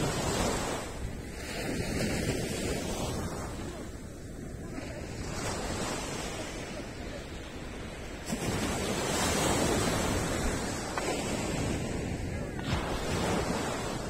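Small ocean waves breaking and washing up a sandy beach, the surf swelling and falling in surges every few seconds, loudest about eight to ten seconds in.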